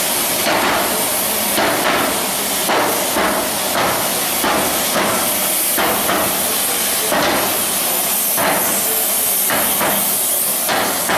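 Sledgehammers striking a red-hot steel boiler plate on an iron flanging table, hand-flanging a locomotive firebox tube plate: about eighteen sharp, uneven blows, one to two a second, over a steady hiss.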